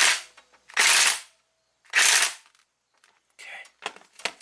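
Impact wrench zapping down the bolt of a new exhaust VVT phaser on a camshaft in three short rattling bursts about a second apart, followed by a few light clicks near the end.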